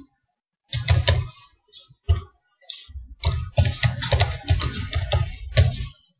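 Typing on a computer keyboard in bursts: a short flurry of keystrokes about a second in, a few single keys around two seconds, then a fast run of keystrokes from about three seconds until near the end.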